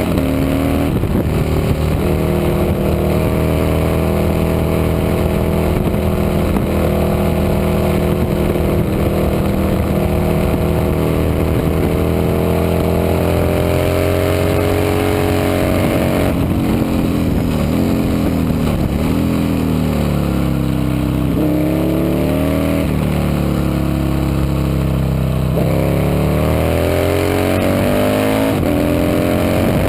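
Racing motorcycle engine at speed, held fairly steady for about the first half, then its pitch drops and climbs again several times in the second half as the rider shifts gears and slows and accelerates through corners.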